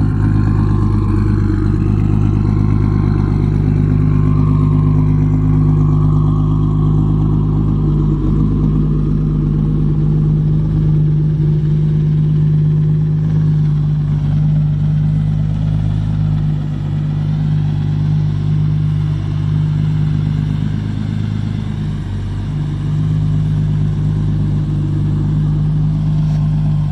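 1997 Mitsubishi 3000GT VR-4's single-turbo 3.0-litre V6 idling steadily while it warms up.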